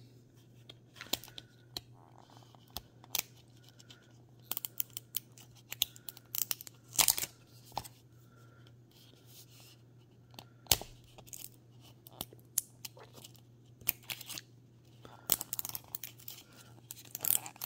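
Label seal and thin plastic wrap being peeled and torn off a small plastic toy capsule. The sound is irregular crackling and tearing with sharp clicks, some louder snaps about seven and eleven seconds in.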